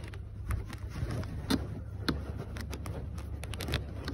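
Scattered small clicks, knocks and rustles from hands working snowmobile clutch parts, with clothing brushing near the microphone, over a steady low hum.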